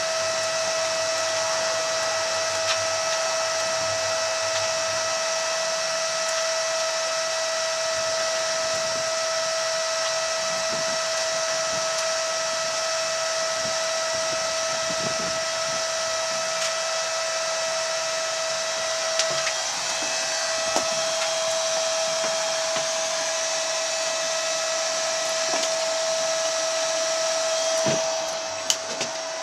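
Steady electric whirring and hiss inside the cabin of a slow-moving driverless electric shuttle, with a constant high whine. A few light clicks sound now and then.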